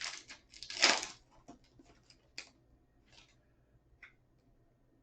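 A trading card pack's wrapper crinkling as it is opened, loudest about a second in, then a few soft rustles and clicks as the cards are handled.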